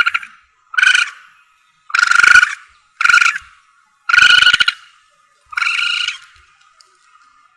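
Civet (musang) calls from a hunting lure recording: short pitched, harmonic calls repeated about once a second, with five clear calls here. The last call, near the end, is quieter and a little longer.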